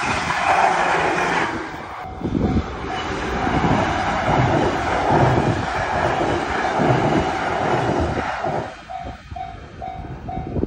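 A train passing through a Japanese railway level crossing, its wheels clattering over the rail joints. The crossing's warning bell dings over it, two to three strikes a second, and stands out clearly near the end as the train noise dies away.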